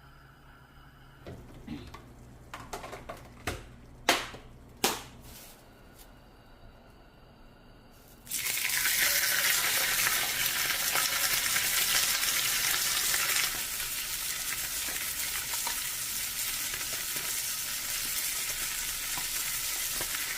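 A few clicks and two sharp knocks of kitchen utensils, then about eight seconds in food starts sizzling suddenly and loudly in hot oil in a pan, frying steadily and easing a little some seconds later.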